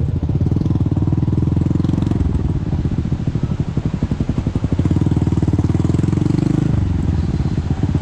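Small motorcycle engine running at low road speed. The throttle opens twice and eases off in between, and it drops back near the end.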